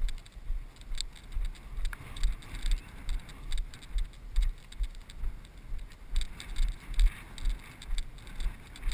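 A person's footsteps walking through tall grass at about two steps a second: dull low thuds at each step with a swish of grass, picked up by a body-worn action camera.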